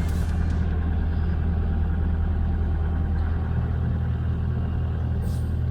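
Toyota Land Cruiser 120's 3.0 D-4D four-cylinder turbodiesel idling steadily.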